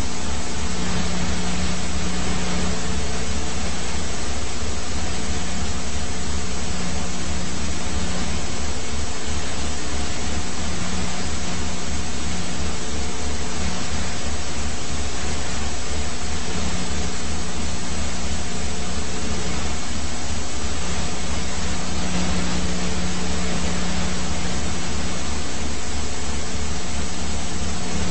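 Helicopter noise: a loud, steady hiss with a fast, even low rotor beat and a few constant hums.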